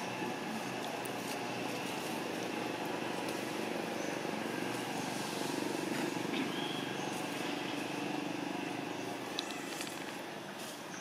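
Steady outdoor background noise with the low hum of a distant motor vehicle, strongest in the middle and easing off near the end.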